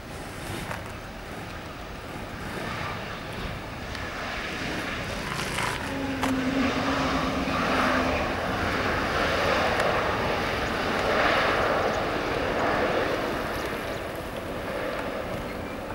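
Airbus A320neo's Pratt & Whitney PW1100G geared turbofan engines running as the airliner rolls along the runway. The rush grows louder, is loudest in the middle, then fades, with a steady low hum for a couple of seconds in between.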